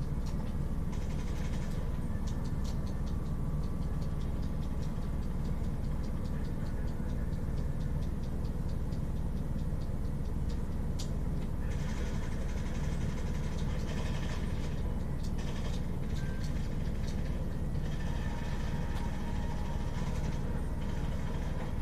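Steady low hum of running computer equipment, with faint irregular ticking over it.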